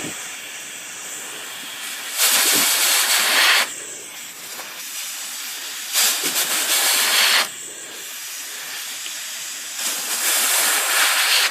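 Compressed air blown through the coils of an IBM Selectric impression cable in three hissing bursts, each about a second and a half long, with a fainter steady hiss between them. The air clears old, gummy oil out of the cable.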